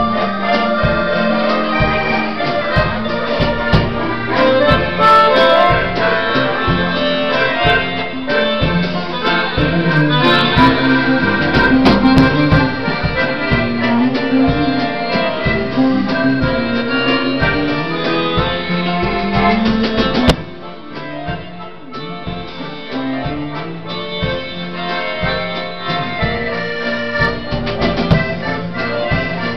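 Accordion music with a rhythmic bass line; it drops to a softer level about twenty seconds in.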